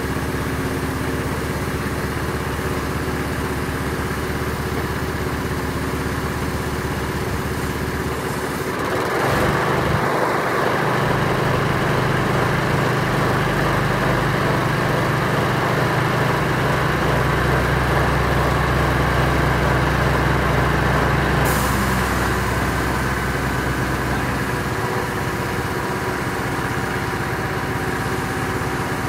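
Crane engine running steadily, its revs rising about nine seconds in and easing back down after about twenty-two seconds. A short click about twenty-one seconds in.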